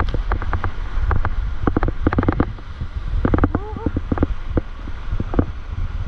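Surf whitewater rushing and splashing over an action camera at water level: a heavy low rumble of water and wind buffeting the housing, with many sharp splash clicks. A few short, high, curving cries come about halfway through.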